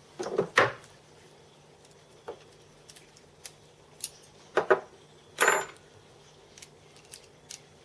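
A steel socket and hand tools clinking and clattering as they are picked up and handled on metal: a quick cluster of clinks at the start, a few separate knocks, a louder clatter about five seconds in, then a few faint ticks.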